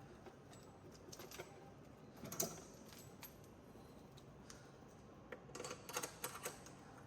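Light scattered clicks and taps of high-pressure oxygen and air hose fittings being handled and pushed onto the ports of a bubble CPAP unit. There is a louder knock about two and a half seconds in and a quick run of clicks near six seconds.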